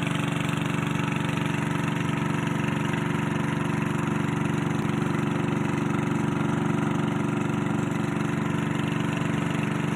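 Small boat's motor running at a steady speed while the boat cruises, with an even, rapid beat and no change in pitch.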